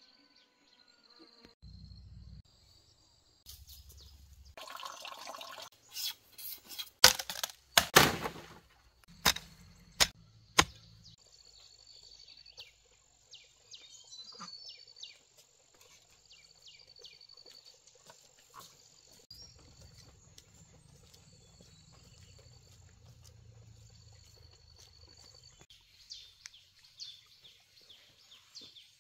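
High-pitched chirping of insects and birds in the forest, with a run of sharp knocks and clicks, the loudest sounds, between about six and eleven seconds in.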